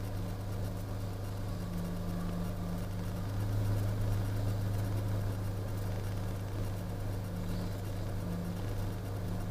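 Steady low machine hum holding one pitch, swelling slightly about three and a half seconds in.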